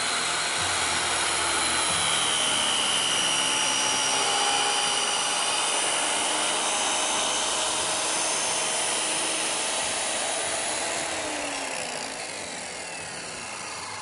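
Corded circular saw ripping through a plastic panel: a steady high motor whine over the cutting noise. About eleven seconds in, the trigger is released and the blade winds down with a falling pitch.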